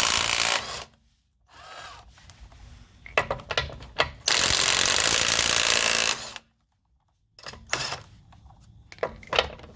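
Ryobi P260 cordless impact wrench hammering on a car's lug nuts in bursts, the longest lasting about two seconds in the middle, with quieter stretches and short clicks between them.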